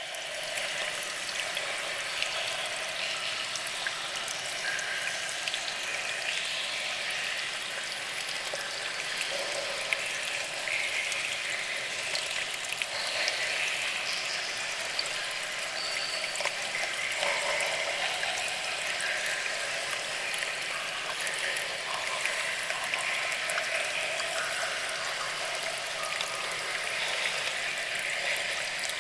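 Cave water ambience: a steady wash of trickling water with many small drips throughout.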